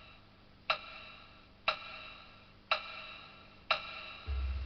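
Background music: one high chime-like note struck about once a second, each strike ringing away, with a low hum coming in near the end.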